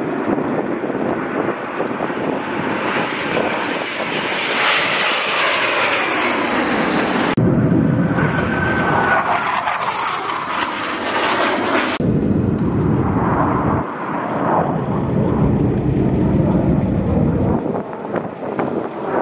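Blue Angels F/A-18 Super Hornet jets flying past overhead: loud, rushing jet engine noise with sweeping shifts in pitch as they pass. The sound changes abruptly twice, about 7 and 12 seconds in.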